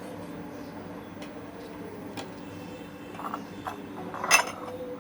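Light taps and clinks of kitchen utensils against cookware, with one sharp, ringing clink about four seconds in, over a steady low hum.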